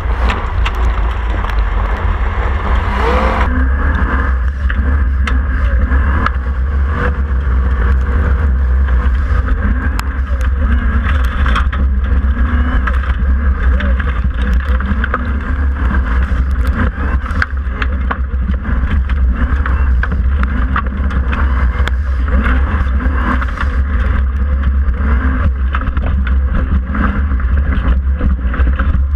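Formula Offroad buggy's engine running hard under load, heard from a camera on the car as a heavy low drone with constant clatter and rattling over it. The sound turns duller about three and a half seconds in.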